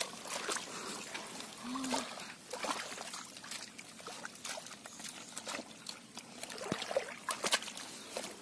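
Hands digging and scooping wet mud and muddy water in a shallow hole, with irregular squelches, splashes and dribbles of water.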